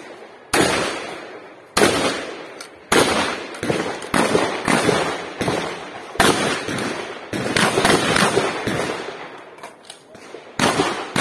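Shotgun fired in a rapid string of loud shots, about one a second or faster with uneven gaps, each bang trailing off in an echo. There is a short lull near the end, then two more shots.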